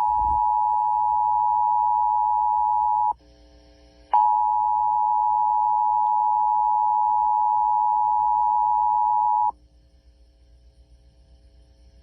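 Emergency Alert System two-tone attention signal played over a car's AM radio, a loud steady dual tone. It breaks off for about a second around three seconds in, resumes, and stops about nine and a half seconds in, leaving only a faint hum of dead air: the stations carry silent audio after the tone, and the required monthly test has failed.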